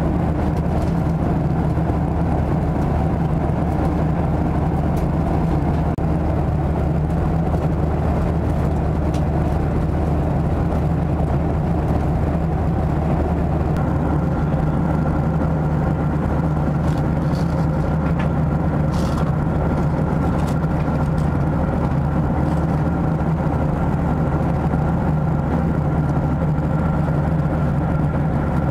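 Steady cabin drone of a Boeing 737-700 in cruise: its CFM56-7B engines and the rush of air, heaviest in the low range. A faint steady whine joins about halfway through.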